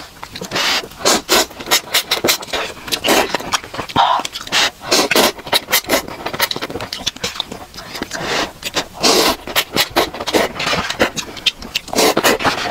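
Close-miked slurping of cup instant noodles: quick, irregular wet sucking bursts as strands are drawn into the mouth, with chewing in between.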